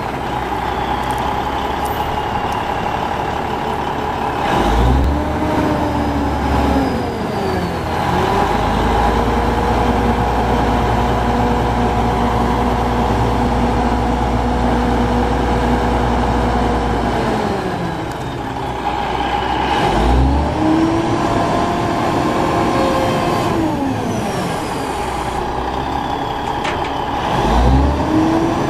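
Ford L9000 truck's Cummins N14 six-cylinder diesel running while its hydraulic crane is worked, revving up and dropping back several times and holding the higher speed for about ten seconds in the middle.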